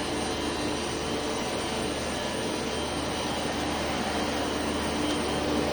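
Steady roar of running plant-room machinery, with a faint hum in it and no change in level.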